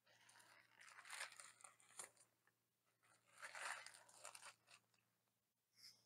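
Faint crinkling and rustling of a paper sandwich wrapper being unfolded by hand, in a few short bursts with one sharper crackle about two seconds in.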